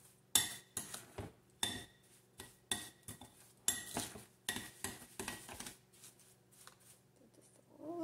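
Metal fork stirring a stiff, sticky sugar-and-oil mixture in a glass bowl, clinking and scraping against the glass in quick repeated strokes, about two or three a second. The strokes stop about six seconds in.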